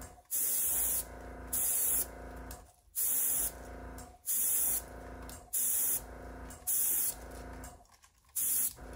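Short hissing bursts of compressed air at 35 PSI blown at wet acrylic paint, about seven puffs, each about half a second long and roughly a second apart.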